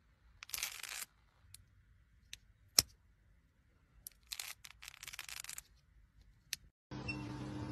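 A metal pen handled in the fingers: small clicks and short sliding scrapes as its smooth metal sleeve is worked to show a studded barrel, with one sharp click about three seconds in. Near the end a steady machine hum starts.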